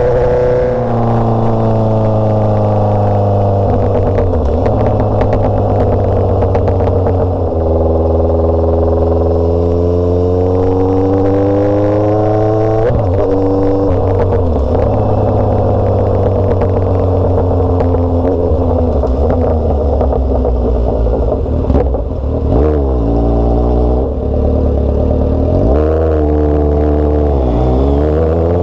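Kawasaki Z900RS inline-four motorcycle engine through a straight-through short-pipe exhaust, running under way: its pitch climbs and falls as the bike speeds up and slows, with several quick drops and rises in the second half as the throttle is closed and reopened.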